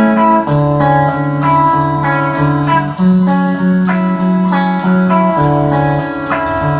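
Instrumental guitar music: repeated plucked guitar notes over a bass line that changes pitch every couple of seconds.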